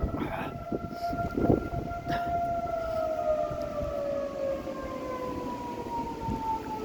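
Outdoor civil defense warning siren sounding during a test, its tone holding steady for a couple of seconds, then slowly falling in pitch.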